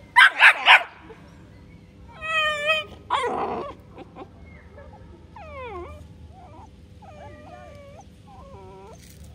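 Bull terrier puppy barking three times in quick succession, then giving a high whining yelp and another bark, followed by several softer whines that rise and fall in pitch.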